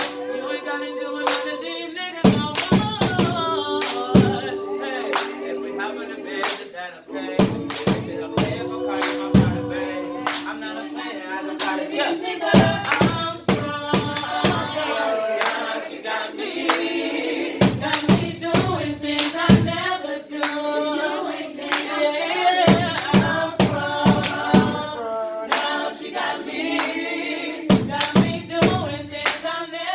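Vocal group singing in harmony, with a rhythm of sharp hand claps running under the voices.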